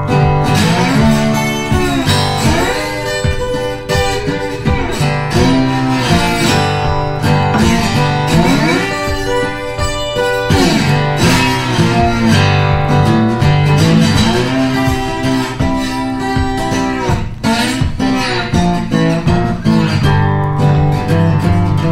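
Background music led by guitar, playing steadily throughout.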